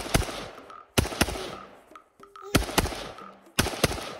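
AK-47 rifle (7.62×39 mm) fired in single shots: four sharp shots about a second apart, each trailing off in an echo.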